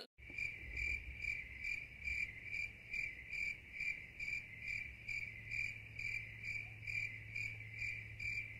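Cricket chirping sound effect: an even run of short, high chirps, about three a second, over a low hum, that starts and cuts off abruptly.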